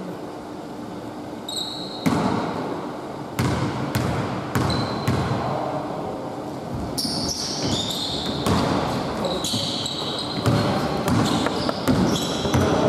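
A basketball bouncing on a hardwood gym floor, a few separate thuds, then sneakers squeaking on the floor as players run, more and more often in the second half.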